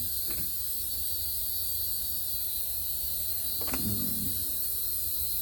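Steady electrical mains hum with a high-pitched whine over it, with a faint click shortly after the start and a brief low murmur of a voice a little before the end.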